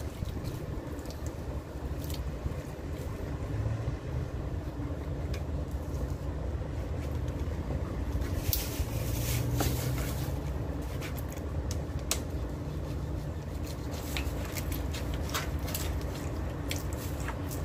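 A knife cutting through a large skipjack tuna on a wooden board: scattered clicks, scrapes and wet squishes of the blade through flesh and bone, thickest about halfway through, over a steady low rumble.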